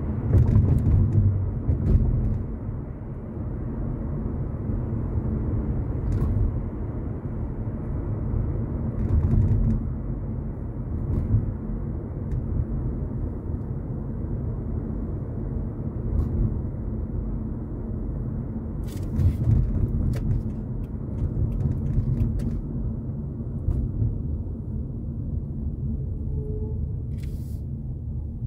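Car driving through city streets: a continuous low rumble of engine and tyre noise that swells and eases, with a few faint clicks about two-thirds of the way in and near the end.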